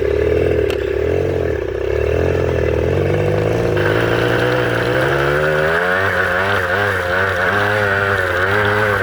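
Farm vehicle engine running as it drives off, its pitch stepping up and down with the throttle; from about six seconds in a wavering whine rides over it.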